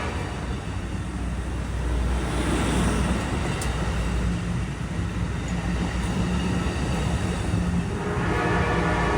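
Amtrak passenger train's diesel locomotive pulling away, a steady low engine rumble with rail noise. Near the end the locomotive horn starts to sound.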